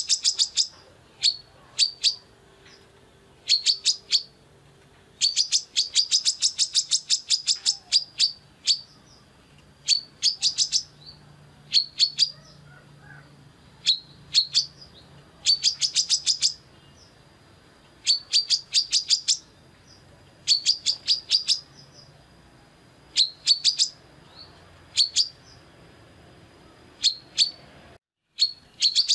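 Female brown-throated sunbird (kolibri kelapa) calling: bursts of rapid, sharp, high chips repeated every second or two, some bursts longer and faster than others.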